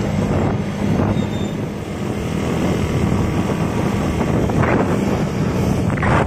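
Intercity bus engine running with its growling 'ngorok' exhaust, a steady low drone, with wind buffeting the microphone.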